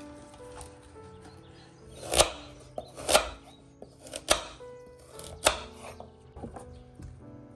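Kitchen knife chopping a peeled carrot on a wooden cutting board: four sharp chops about a second apart, over soft background music.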